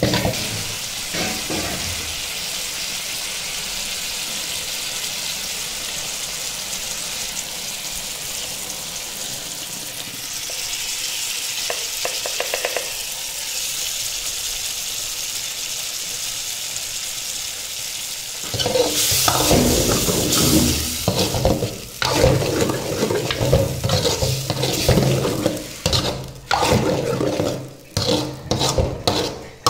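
Onion and capsicum masala sizzling steadily in oil in a kadai. About two-thirds of the way through it turns to louder, uneven scraping and stirring strokes of a steel ladle through thick gravy.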